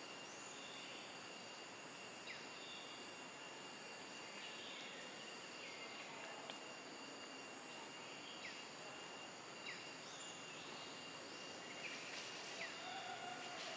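Outdoor ambience: a steady high insect drone over a soft background hiss, with short high chirps recurring every second or two.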